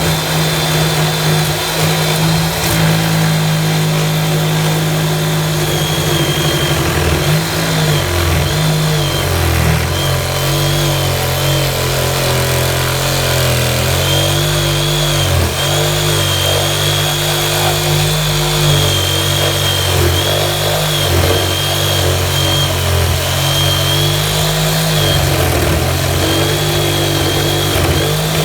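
Bladed electric power tool running continuously as it cuts wood from the bottom edge of a wooden garden gate, its motor pitch sagging and recovering as the blade bites.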